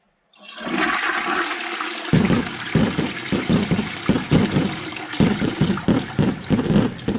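A newly plumbed toilet flushing. Water rushes in suddenly about half a second in, and from about two seconds in it turns to an uneven gurgle as the bowl drains. The flush works.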